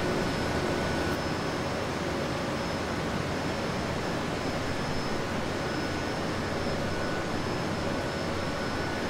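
Steady machine noise of a car assembly hall: an even rush with a few faint, steady high whines running through it.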